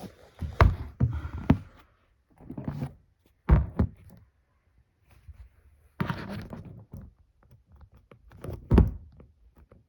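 A series of thunks and knocks as the animatronic's parts are handled and set down, with brief rustling between them. The loudest knocks come about half a second in, at three and a half seconds, and near the end.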